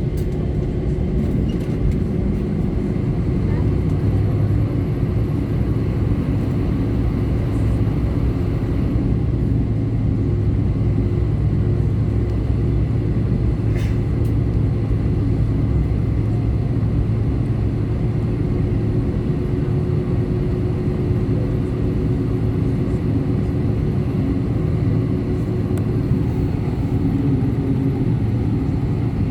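Cabin noise inside an Airbus A319 taxiing, with the jet engines running at a steady low power. A constant low rumble and hum, with no spool-up.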